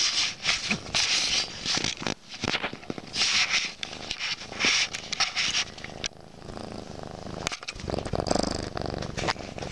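Orange tabby kitten purring right against the microphone, with bursts of rustling fur and sharp clicks as it paws and mouths at the camera. The rustling dies down after about six seconds, leaving a steadier purr.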